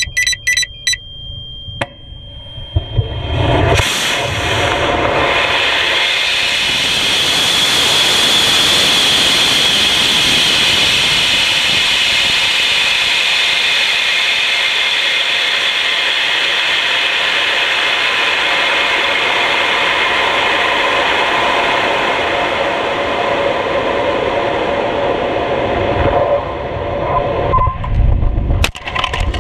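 Onboard a high-power rocket: a few short electronic beeps, then a Gorilla N2717 rocket motor ignites about three seconds in as the rocket lifts off. A loud steady rush of motor and air noise follows through the climb and fades near the end. A sharp crack comes just before the end, at apogee.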